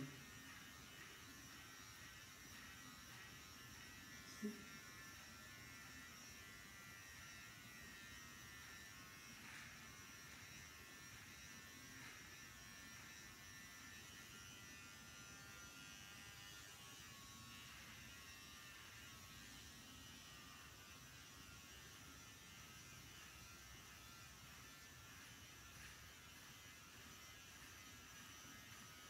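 Electric hair clippers running with a faint, steady buzz as they trim hair, with one brief knock about four and a half seconds in.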